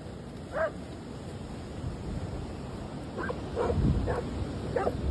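Dog barking: one short bark about half a second in, then four quick barks near the end, over a low rumble of wind on the microphone.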